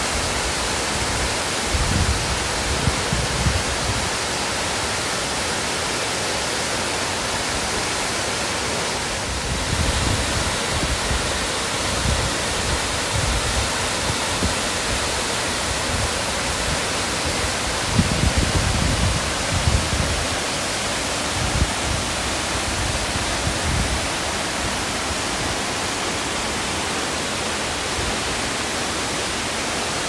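Steady, loud rush of a four-tier waterfall, about 40 m high, pouring over rock into its plunge pool. A few brief low rumbles rise underneath now and then.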